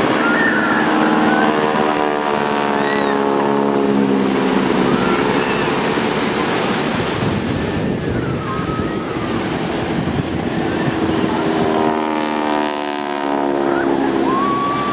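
T-6 Texan propeller planes with radial engines flying past twice, their engine drone falling in pitch as they go by. Steady wind and surf noise lies beneath.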